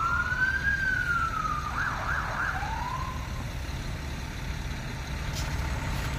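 Emergency vehicle sirens: a slow rising-and-falling wail, then a brief fast yelp about two seconds in and another shorter wail that fades out a little after three seconds. A steady low rumble runs underneath.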